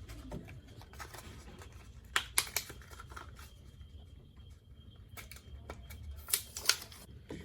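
Scattered light plastic clicks and rattles from a car's front turn signal bulb socket and bulb being handled and twisted, with a few sharper clicks in two small clusters.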